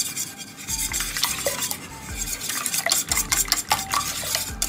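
Wire whisk beating eggs in a stainless steel bowl: quick, uneven scraping and clinking strokes against the metal, with the bowl ringing faintly now and then.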